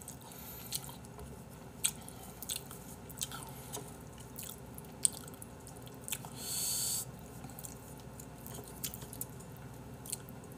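Close-miked eating of Chapagetti black-bean noodles: wet chewing with scattered smacks and clicks. About six seconds in there is one longer slurp, the loudest sound.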